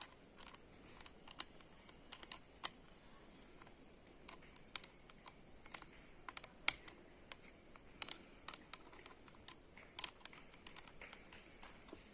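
Irregular light clicks and taps, a few a second, from the chain and bar of a chainsaw adapter on an angle grinder being handled while the chain tension is adjusted.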